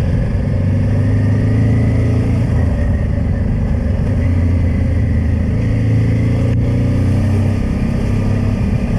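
Honda Transalp motorcycle engine running steadily under way, its pitch shifting slightly up and down.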